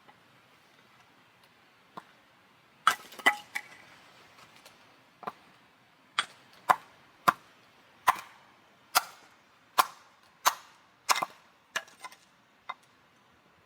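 Sharp chopping strikes on wood, about fifteen in a row, spaced roughly half a second to a second apart, each with a short ringing tail.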